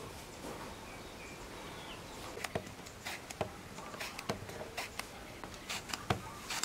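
Cleaver slicing a luffa gourd into rounds, each stroke ending in a sharp tap on the woven bamboo tray, about eight irregular chops starting about two seconds in. Faint bird chirps in the background before the chopping begins.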